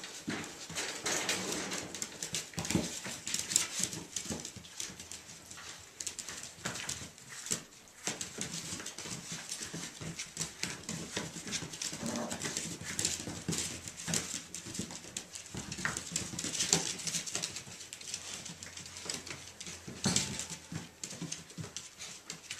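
Irish Jack Russell Terrier puppies play-fighting: scuffling, with claws scratching and tapping on a board floor, and short puppy whines and growls now and then.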